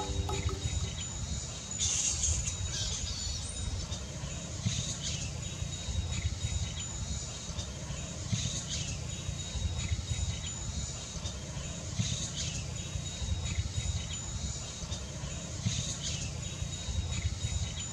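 Roosting colony of large flying foxes squabbling: short bursts of shrill, scratchy calls every second or two, over a faint steady high drone and a low rumble.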